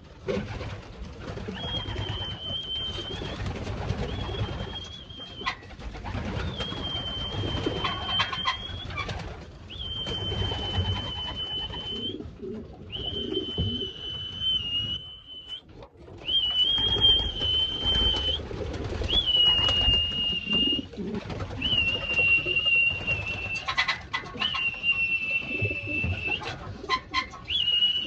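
A high whistle sounded in a series of about ten long, steady notes, each one to two seconds, calling racing pigeons back into the loft. Pigeons coo underneath it, with a few light clicks and knocks.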